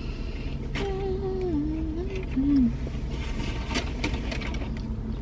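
A woman hums with her mouth closed while chewing: a falling 'mm-mm' about a second in and a short one after two seconds. A steady low rumble runs underneath inside the car, and a few soft clicks come near the middle.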